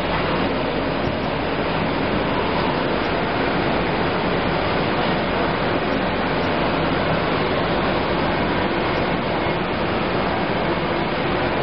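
Semi-automatic folder-gluer for corrugated boxes running, a steady, even mechanical noise.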